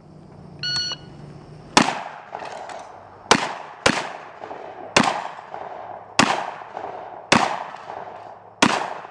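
A shot timer beeps once, then a shotgun fires seven times at an uneven pace over about seven seconds, each shot trailing off in echo.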